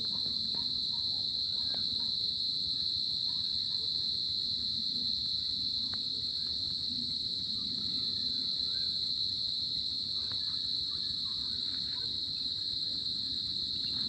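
Crickets chirping in a continuous high-pitched drone, with a few faint small sounds underneath.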